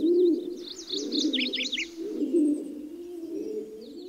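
Doves cooing, a steady run of low, rounded coos. Over them come high, quick bird chirps, busiest between about one and two seconds in.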